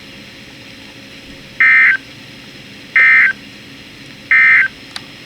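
Three short bursts of EAS digital data tones (SAME code) from a NOAA Weather Radio broadcast, evenly spaced about a second and a half apart over faint radio hiss. This is the end-of-message code that closes an alert.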